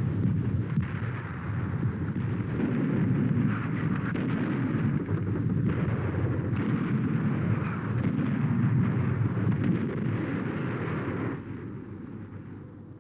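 Battle sounds of continuous gunfire mixed with artillery explosions, dying down about eleven seconds in.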